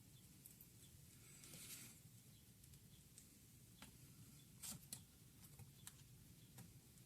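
Faint, sparse clicks and a brief soft scrape of small parts being handled, over a quiet room hum. The clicks are irregular, with two close together about two-thirds of the way in.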